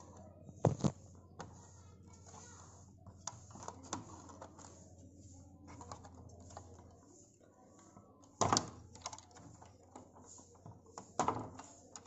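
Scattered clicks and taps of hands handling the opened Roland Juno-Di keyboard's circuit boards, ribbon cables and plastic parts, with three louder knocks: about a second in, near eight and a half seconds and near eleven seconds.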